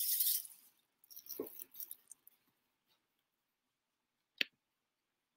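Brief rustling from handling, a soft thump about one and a half seconds in, then a single sharp click about four seconds in, with quiet between.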